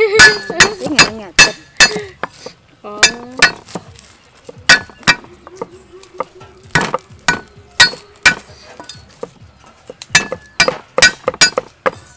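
Steel cleaver striking a wooden chopping block over garlic cloves: irregular sharp knocks, each with a short metallic ring, roughly two a second.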